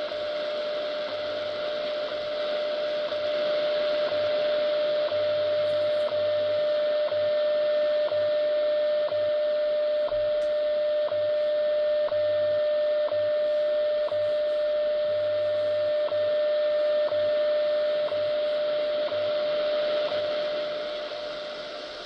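WWV time signal on 25 MHz shortwave, received on an XHDATA D-109 portable radio's speaker: a steady tone with a short tick every second over shortwave hiss, and low time-code pulses of varying length beneath. The signal fades a little near the end.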